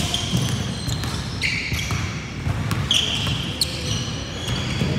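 Basketball game on a hardwood gym floor: sneakers squeaking in short high squeals and a basketball bouncing, over a steady low hum of the hall.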